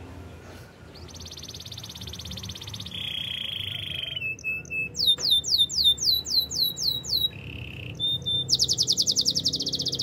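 Canary singing a song of distinct phrases: a fast high trill, a lower rolling phrase and a short held note, then a run of quick descending whistles at about three a second, a brief low roll, and another fast high trill near the end.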